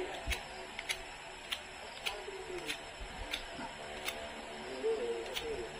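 Steady ticking, evenly spaced at about three ticks every two seconds, with faint low calls in the background.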